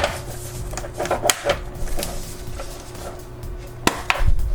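Plastic bottom cover of an HP laptop being pressed back onto the chassis: its clips snap in with a few sharp clicks and some scraping, over a faint steady hum.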